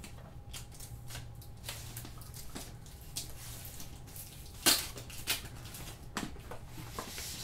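Handling noise from unpacking gear: light rustles and taps as a boom pole is handled and extended, with a sharp click a little past halfway and a couple of smaller knocks after it.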